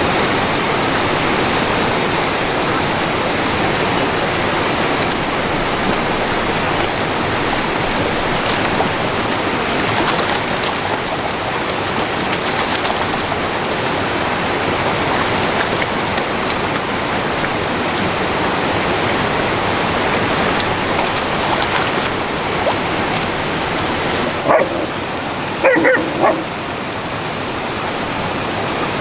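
Steady rush of flowing stream water, with a dog giving a few short, high calls near the end.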